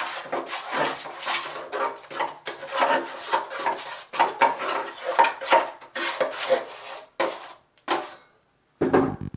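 A drywall knife scraping and stirring 5-minute setting compound in a drywall pan, in quick repeated rasping strokes. The strokes stop a little after eight seconds in, followed by a short duller knock near the end.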